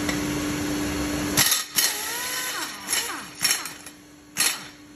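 A steady mechanical hum that stops abruptly about a second and a half in, followed by five short bursts from a pneumatic impact wrench spinning the nut down the threaded rod of a sleeve puller, pressing a cylinder repair sleeve into the block.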